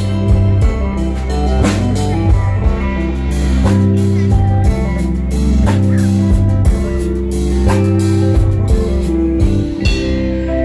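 Live band playing a song with guitar, bass and drum kit over a steady beat; the drums stop near the end.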